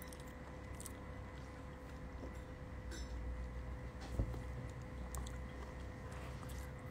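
A person eating with a spoon and fork from a bowl: quiet chewing, with a sharp click of utensil against the bowl about four seconds in, over a faint steady electrical hum.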